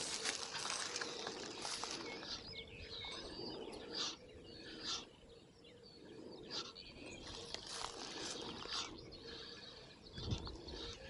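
Small songbirds chirping and warbling again and again, over a steady rustling of wind through the grass and reeds.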